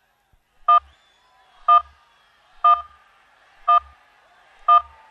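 Countdown timer beeping once a second with short, identical electronic beeps, five in a row, marking the final seconds of a timed answer round.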